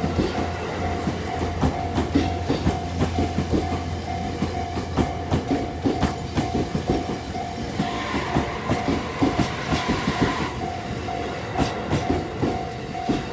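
JR East E257 series electric train passing over a level crossing, its wheels knocking rapidly over the rail joints. A low hum drops away about four seconds in. The crossing's warning bell rings throughout in even, regularly repeating clangs.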